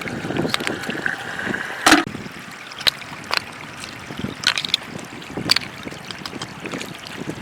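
Shallow floodwater trickling and flowing, with scattered sharp clicks and knocks through it, the loudest about two seconds in.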